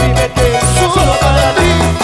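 Live Latin dance band playing an up-tempo tropical number, with a steady pumping bass line under melody lines and percussion.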